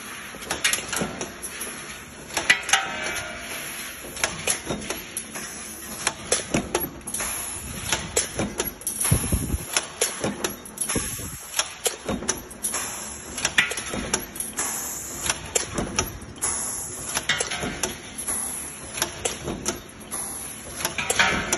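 Mechanical power press running continuously with a pneumatic strip feeder, stamping parts in a steady series of sharp metallic clanks about twice a second. Short bursts of hiss come in between the strokes.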